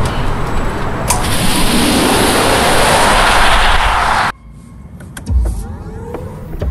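BMW i7 electric sedan driving past at speed: a steady rush of tyre and wind noise with no engine note, cut off abruptly about four seconds in. Quieter clicks and a low thump follow.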